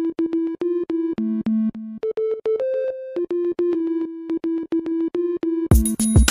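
Background music: a melody of short, clipped notes repeating in a steady rhythm. Near the end a drum beat with deep kicks comes in.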